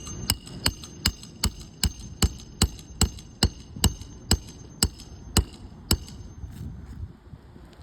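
A hammer striking metal in quick, even blows, about two and a half a second with a short metallic ring, stopping about six seconds in: roofing nails being driven while a shingle is repaired.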